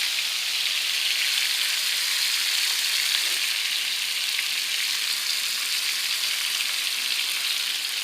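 Seasoned shrimp frying in olive oil in a pan: a steady sizzle with small scattered pops.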